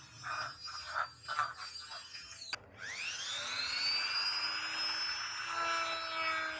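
A small electric power tool's motor spinning up about two and a half seconds in, its whine rising quickly and then holding steady at speed.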